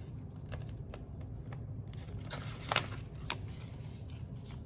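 Rustling and a few light clicks of clear plastic zipper pouches being turned in a ring binder and paper bills being handled, over a low steady hum.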